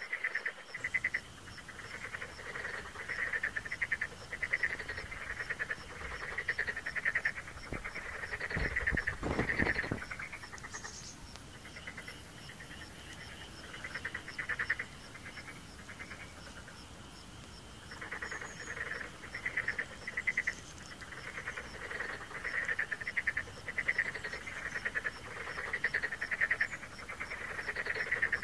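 Frog croaking in short, rapidly pulsed calls, repeated about once a second, with a quieter stretch near the middle. A low rumble lasts about two seconds, some eight seconds in.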